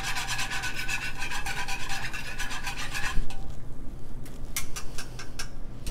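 Rapid scraping strokes of a utensil beating cornstarch into pineapple liquid in a small skillet. The fast strokes stop about three seconds in, followed by a few light taps.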